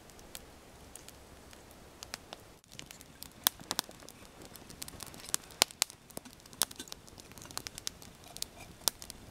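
Wood campfire of split sticks crackling and popping, with irregular sharp pops that come more often and louder from about two and a half seconds in.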